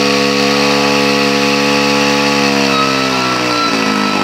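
Large vintage long-bar chainsaw running at speed while cutting through a log. About three seconds in, its pitch sags as the engine labours under the load of the cut.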